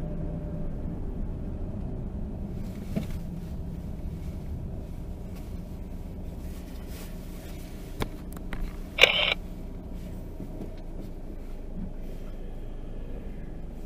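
Inside a car's cabin: steady low engine and road rumble as the car slows to a stop. There is a click about eight seconds in and a short, louder burst of noise a second later.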